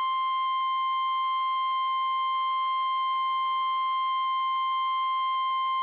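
NOAA Weather Radio's 1050 Hz warning alarm tone: one loud, steady, unbroken high tone. It is the signal that an emergency warning message is about to be broadcast.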